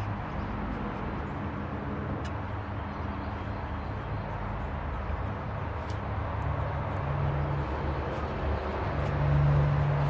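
A steady low mechanical hum, like a motor or distant traffic. Its pitch shifts about two thirds of the way through, and it grows louder near the end.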